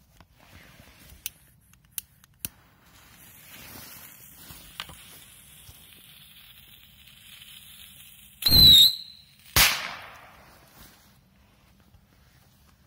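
Whistling firecracker: a few sharp clicks, then a hiss for several seconds, then a short high whistle about eight and a half seconds in. A loud bang follows about a second later.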